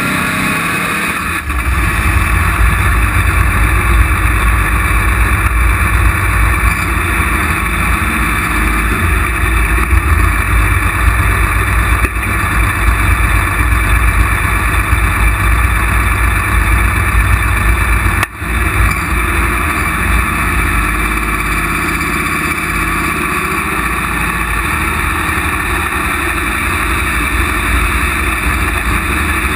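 Tractor-pulling engine running loud, heard from a camera mounted on the roll cage: a heavy low rumble sets in about a second and a half in. It dips sharply for a moment about eighteen seconds in, then carries on somewhat lighter.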